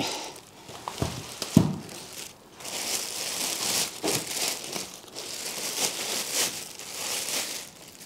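A large clear plastic bag crinkling and rustling as it is handled around a model excavator, with two sharp knocks in the first two seconds.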